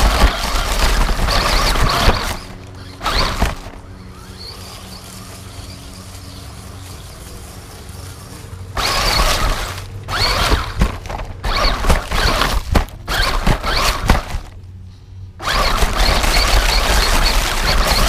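Small electric 1/18-scale 4WD RC truck driving over grass and dry leaves: motor whine and rushing noise that come and go with the throttle. It stops about two seconds in, runs again in short uneven bursts from about nine seconds, pauses briefly, then runs steadily near the end.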